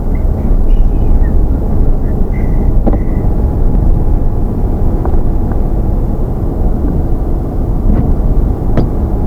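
Heavy wind buffeting the microphone: a loud, unsteady low rumble that doesn't let up.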